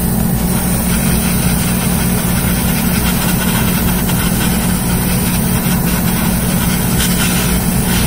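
Hobby spray booth's exhaust fan running: a steady motor hum with an even airy hiss.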